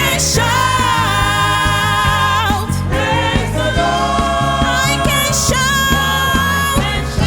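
Youth gospel choir singing two long, held phrases with a short break between them, over a band accompaniment with a steady beat.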